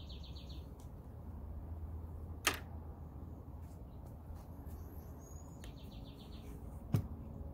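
Two sharp single clicks about four and a half seconds apart, over a low steady hum, with a short bird trill about five and a half seconds in.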